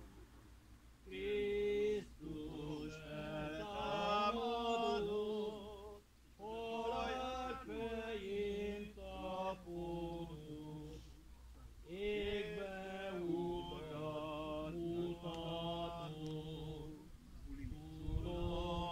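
Unaccompanied voices slowly singing a funeral hymn, in phrases of about five seconds with short breaks between them.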